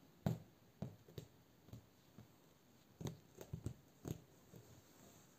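Cat's paws scratching and pulling at a fabric blanket on a sofa: a string of soft scratches and light thumps, with a cluster about three to four seconds in.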